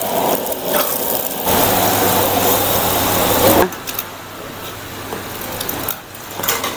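Stir-frying in a carbon-steel wok over a gas burner: steady loud burner noise and sizzling with a metal spatula working the wok. About three and a half seconds in it cuts to a quieter stretch with a couple of sharp metal clinks from a ladle against the wok and jar.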